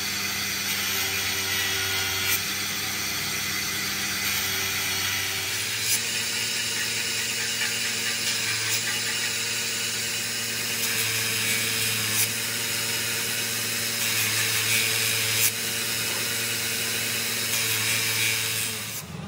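Electric bench grinder running steadily, its abrasive disc grinding the steel teeth of a truck gear: a harsh grinding hiss over the even hum of the motor, with a few short ticks.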